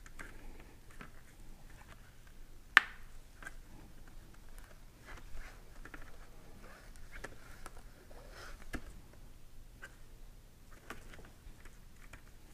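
Quiet handling noises from a plastic motorcycle helmet face shield and Pinlock anti-fog insert in nitrile-gloved hands: scattered soft clicks and rustles, with one sharp click about three seconds in.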